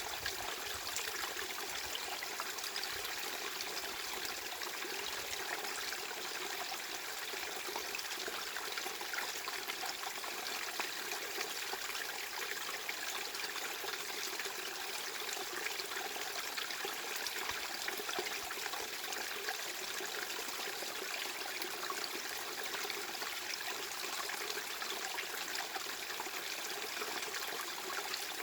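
Steady, unchanging noise of trickling running water, as from a small stream, with little deep rumble.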